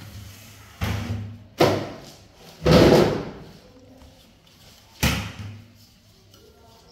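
Several sharp knocks and thumps, four in all, the loudest and longest about three seconds in: a small monkey clambering between a table edge and a metal window rail.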